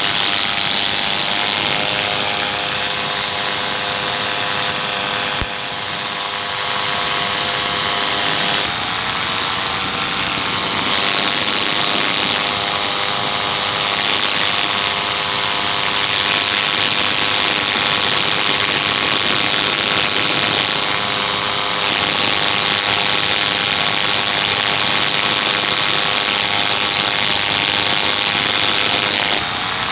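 Paramotor engine and propeller running steadily in flight, with a constant rush of air. The engine note shifts slightly about nine seconds in.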